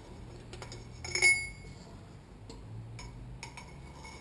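Metal tools and fork parts clinking and tapping, with one louder, sharp metallic clink about a second in that rings briefly, and a few quieter clicks after it.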